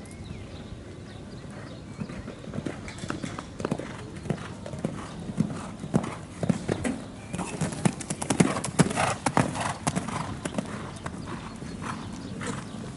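A show-jumping horse's hooves pounding the sand arena at a canter. The hoofbeats start about two seconds in and are loudest and thickest in the middle, then ease off toward the end.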